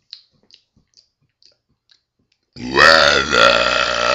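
A few faint clicks, then a long, loud burp that starts about two and a half seconds in and keeps going.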